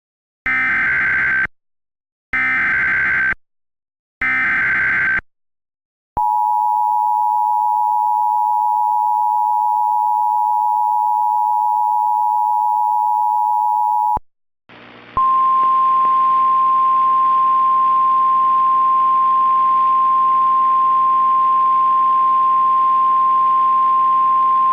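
Emergency Alert System tones: three short bursts of screechy SAME header data, then the two-tone EAS attention signal held steady for about eight seconds. After a brief gap, a single steady NOAA Weather Radio-style 1050 Hz warning tone sounds over radio hiss, signalling a tornado warning broadcast.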